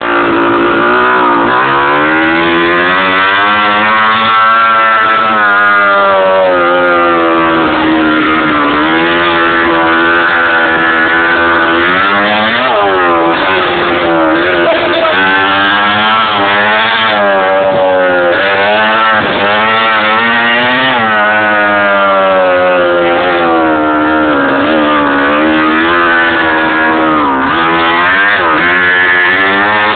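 KTM motocross bike's engine revving under the rider's throttle, its pitch rising and falling every few seconds, with a sharp drop and climb about twelve seconds in.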